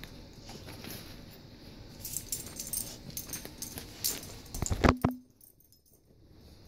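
Light clicks and rustling as a dog and its handler move on a hardwood floor, then a loud knock with a brief low squeak about five seconds in.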